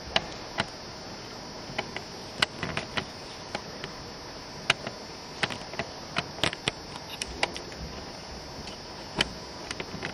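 A string of irregular sharp clicks and taps, some twenty in all and a few much louder than the rest, over a steady background hiss.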